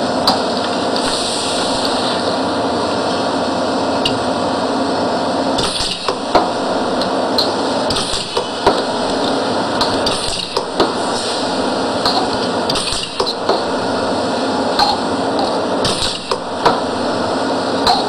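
Pneumatic cap pressing machine cycling over and over. Each stroke of its air cylinder pressing a cap onto a bottle gives a sharp knock, along with short hisses of exhausting air, every couple of seconds over a steady background noise.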